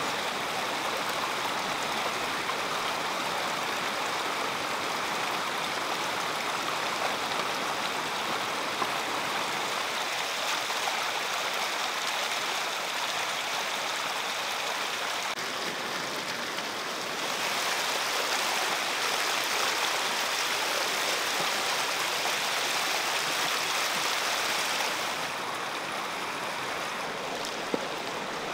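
Shallow stream water running steadily, a little louder for several seconds past the middle, with a few light knocks.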